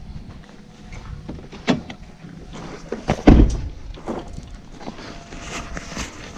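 Two heavy thuds about a second and a half apart, the second the louder and deeper, with small knocks and clicks around them.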